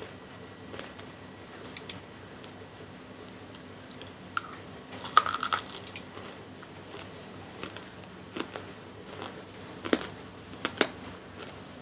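Metal spoon clinking and scraping in a small glass bowl of slate pencil powder: a handful of sharp clinks, a quick cluster a little before the middle with a short ring, and a few more near the end.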